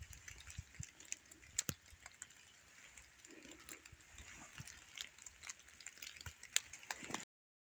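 Footsteps crunching and crackling on a snowy forest floor, an uneven run of quiet crackles and soft thumps. The sound stops abruptly near the end.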